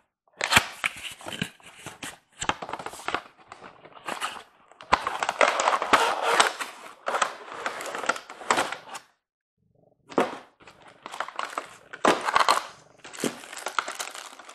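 A cardboard model-train box being handled and opened, and a passenger car in a clear plastic bag slid out of it: rustling, scraping cardboard and crinkling plastic, with sharp clicks and a short pause a little after nine seconds.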